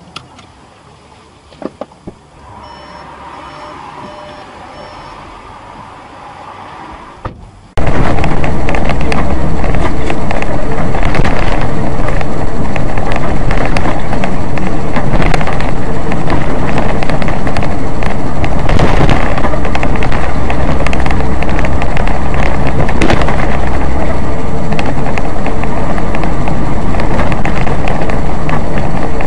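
Faint vehicle noise with a few clicks and a short run of faint beeps. About eight seconds in, it cuts abruptly to very loud, overloaded, steady vehicle and road noise with a heavy low rumble.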